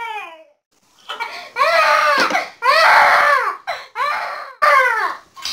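A young child crying in about four long wails, each rising and then falling in pitch, starting about a second in after a short falling whimper and a brief pause.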